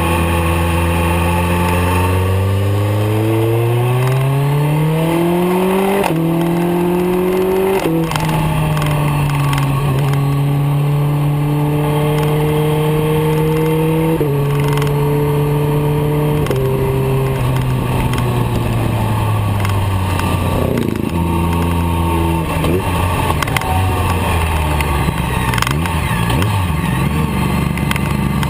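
BMW K1300R's inline-four engine heard from the rider's seat: it revs up for several seconds, drops in pitch in steps as the rider shifts up, then falls away as the bike slows, with a short rise in revs a little past the middle. Wind rushes over the microphone throughout.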